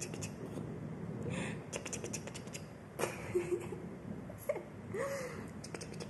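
A kitten at play: quick runs of light clicks and scratches from its claws on a tiled floor, with a few brief soft voice sounds.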